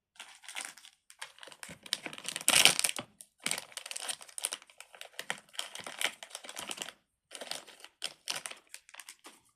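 Crinkly plastic packaging being handled, in irregular bursts of crackling, loudest about two and a half seconds in.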